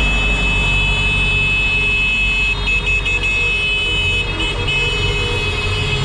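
Vehicle horns held down in long, steady blasts, several pitches sounding together, over the low rumble of passing traffic, with brief breaks in the horns about three and four and a half seconds in.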